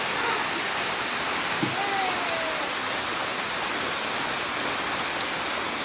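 Waterfall pouring: a steady, even rush of falling water that fills the sound.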